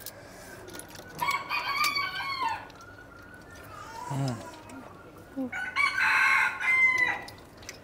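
A rooster crowing twice, once about a second in and again about six seconds in.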